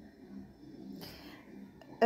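Quiet room tone with faint handling noise: a brief soft rustle about a second in and a light click near the end.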